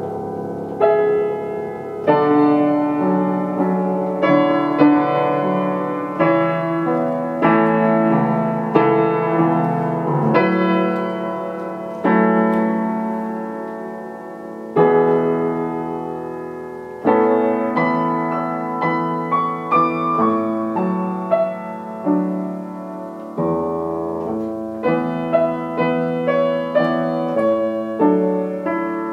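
Upright piano played solo: a slow carol arrangement of full chords, each struck and left to ring and fade before the next.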